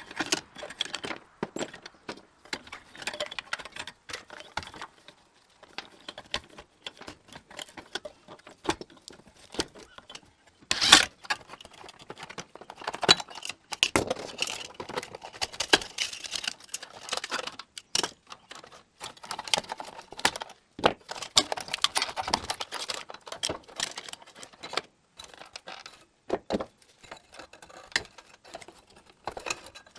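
Metal parts and hand tools clinking and rattling in irregular bursts as a power converter is taken apart, with one sharper knock about eleven seconds in.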